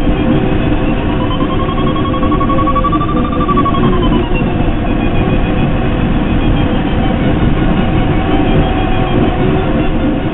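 Steady rush of air over a glider's canopy in flight, with the variometer's audio tone sounding: a thin electronic tone that rises slightly in pitch, then drops and fades about four seconds in as the climb rate changes while circling in a thermal.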